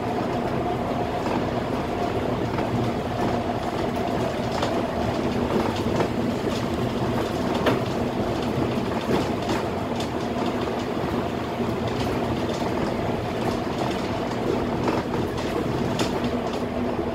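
Cab noise of a Scania K320 articulated bus on the move: a steady engine drone under road noise, with frequent small rattles and knocks from the body and fittings.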